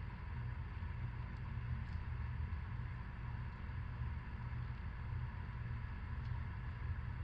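Steady low hum of background room noise, with a few faint ticks.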